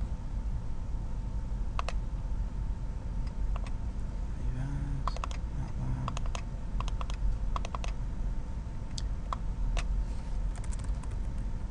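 Computer keyboard keys being typed and mouse buttons clicking, in irregular clusters of sharp clicks, over a steady low hum.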